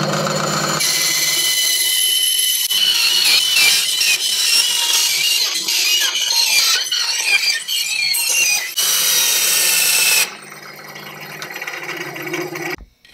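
Benchtop band saw cutting through an aluminium motor-shaft extrusion: a steady, high-pitched metal-cutting hiss over the saw motor's hum. About ten seconds in it drops to a much quieter run.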